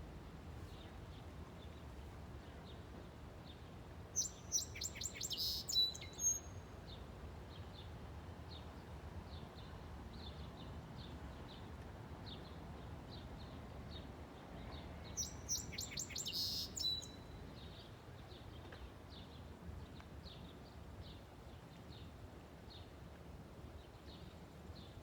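Bird call of unknown species: two loud phrases of rapid notes, one about four seconds in and one about fifteen seconds in, each ending on a thin high note. Fainter short chips repeat throughout.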